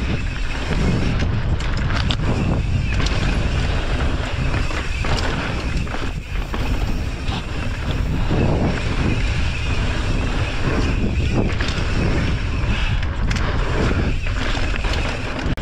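Wind rushing over the microphone of a mountain bike ridden at speed down a rough trail, with frequent short knocks and rattles from the bike.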